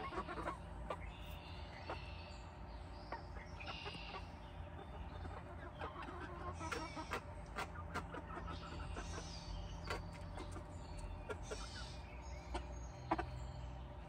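Backyard hens clucking softly, with short calls scattered throughout from several birds at once.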